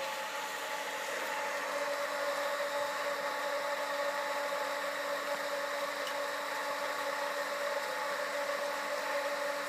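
Submersible drainage pump whirring steadily with a constant hum, pumping rainwater out of a flooded cellar and only just keeping pace with the inflow.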